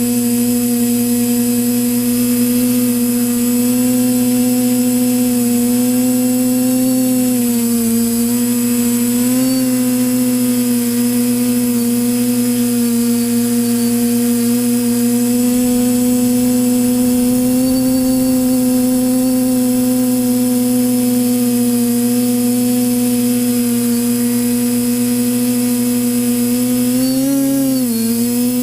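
Electric motors and propellers of an FPV quadcopter running in flight: a steady high whine that dips briefly in pitch a few times, most sharply near the end.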